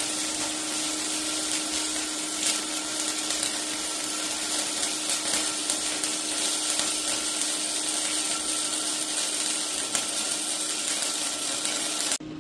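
Angle grinder running steadily against the steel frame of a 1952 Ford F3, cleaning up the frame edges. It cuts off abruptly near the end.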